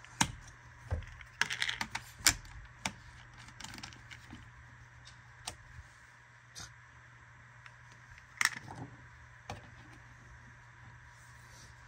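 Scattered clicks and knocks of antifreeze jugs and tubing fittings being handled and set up, loudest in the first few seconds and once more about eight and a half seconds in, over a faint low steady hum.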